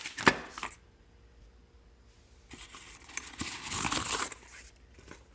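A zip tie snipped off, two sharp snaps right at the start, followed a couple of seconds later by about two seconds of crinkling plastic.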